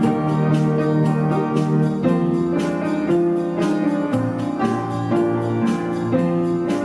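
Instrumental background music on keyboard, with sustained chords that change about once a second.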